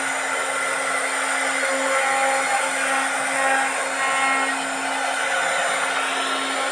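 CNC wood router running steadily: a constant motor whine and hum under a steady hiss of cutting noise.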